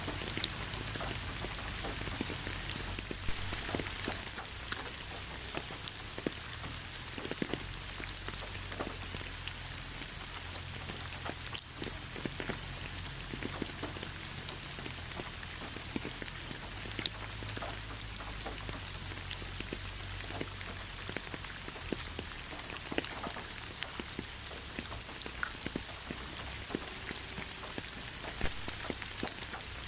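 Steady rainfall with many separate drops pattering and ticking on surfaces, over a low rumble.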